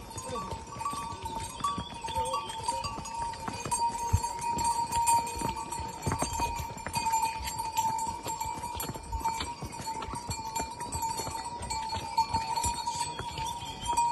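A pack-mule caravan going down stone steps: hooves clip-clopping and knocking on the stone, with the harness bells ringing steadily.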